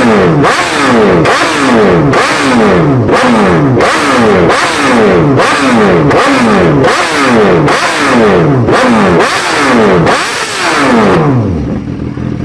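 Superbike engine running without a muffler, blipped over and over: a sharp rev then the pitch falling back, about once a second. Near the end the revving stops and it settles to a lower, steady idle.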